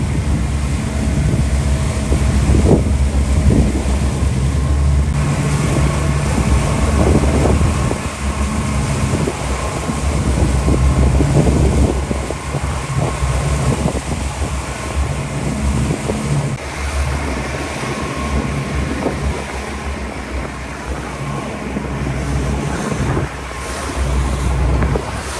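A motorboat's engine running steadily under way, with wind buffeting the microphone and water rushing past.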